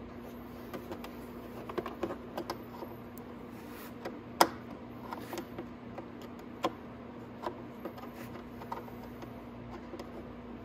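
Scattered light clicks and taps of a screwdriver and screws working on a motorcycle's plastic side fairing as its screws are taken out, with one sharper tap about four seconds in. A steady low hum runs underneath.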